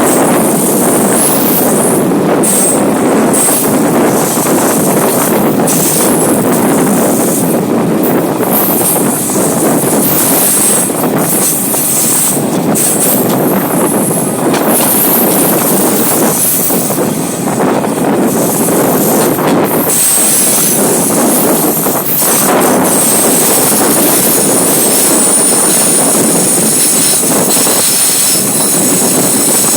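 Train running on the rails: a loud, steady rumble with a high-pitched wheel squeal that grows steadier and stronger in the last third.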